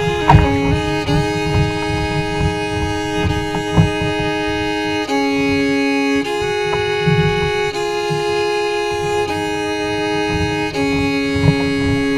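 Background music led by a bowed string instrument, violin-like, playing long held notes that change every second or two, over a low uneven rumble.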